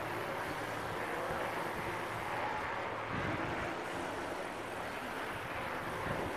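Steady rolling noise of a mountain bike being ridden along an indoor dirt trail: tyres on the track and the bike's rattle, with a faint low hum in the first second.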